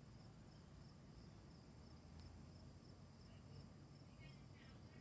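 Faint crickets chirping in a steady rhythm, about three chirps a second, over a thin high steady trill, with a low faint background hum of the evening outdoors.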